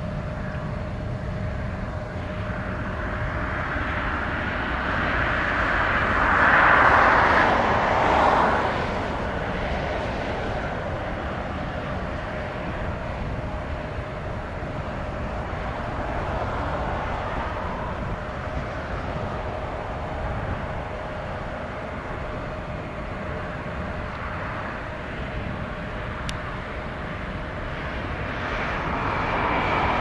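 Jet airliner engines with a steady hum, swelling louder about seven seconds in and again near the end, over wind rumbling on the microphone.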